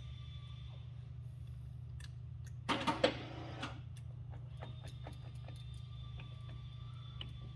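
Ooya RE2-1300A radial drill press running, with a steady low motor hum and a faint whine. About three seconds in there is a short metallic clatter, followed by a few scattered clicks.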